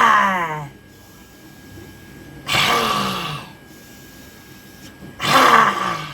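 Lion's breath in simhasana: forceful, loud exhalations through the open mouth with the tongue out, voiced in the throat so that it vibrates. Three breaths, each about a second long and falling in pitch, some two and a half seconds apart.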